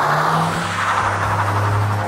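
Cartoon race-car sound effect: a car engine rushing past with a whoosh that fades away, over background music.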